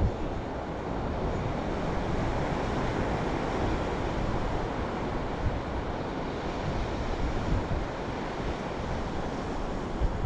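Steady wash of ocean surf on a sandy beach, with wind buffeting the microphone in low gusts, strongest near the end.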